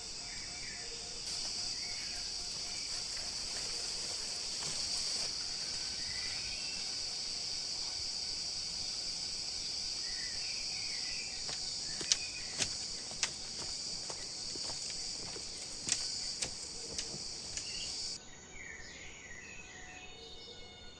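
Steady high-pitched insect drone from forest insects, with short bird chirps here and there. A handful of sharp taps fall in the second half, and the drone cuts off abruptly near the end, leaving a quieter insect background.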